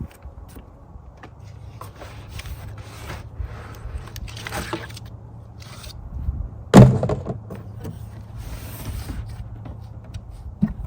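Packaging being handled: rustling and scraping of cardboard and plastic, with one sharp loud knock about seven seconds in, over a low steady hum.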